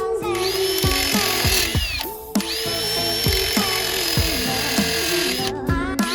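Background electronic music with a steady beat of deep kick drums. A high whine rises about two seconds in, holds for about three seconds, then falls away.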